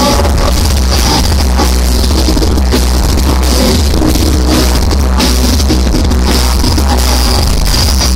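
Indie rock band playing live over a venue PA: heavy bass, a drum kit and synths, loud and steady.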